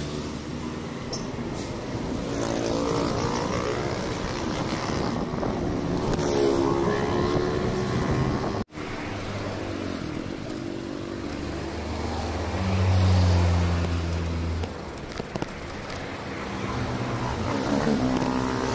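Road traffic: several motor vehicles pass close by one after another, their engines rising and falling in pitch over steady road noise. A louder, deeper engine goes by about two-thirds of the way through, and the sound cuts out for an instant near the middle.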